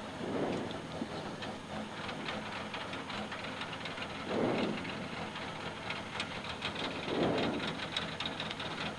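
Rally car engine idling, heard from inside the cabin, over a steady hiss with light rattling ticks. The engine swells briefly three times: about half a second in, halfway through, and about seven seconds in.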